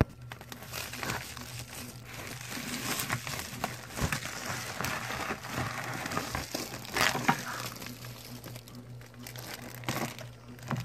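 Clear plastic bag crinkling as it is handled and opened, with a couple of light knocks as small plastic toy figures are set down on a tabletop.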